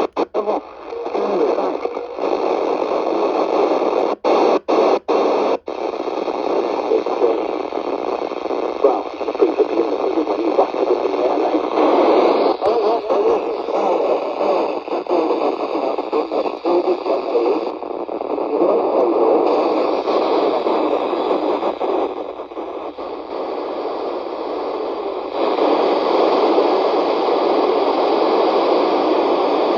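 CRE 8900 (Alinco DX-10) CB radio receiving the 27 MHz FM band, its speaker giving a steady rushing hiss of static. The hiss cuts out briefly several times in the first few seconds, then runs on, swelling and fading and growing louder near the end.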